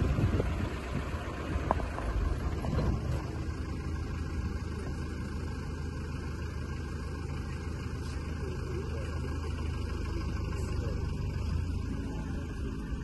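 Safari vehicle's engine idling, a steady low rumble.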